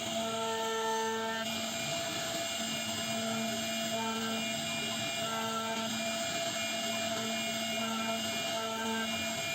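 CNC router spindle running steadily while carving wood, a constant whine with shorter higher tones switching on and off every second or so as the machine moves.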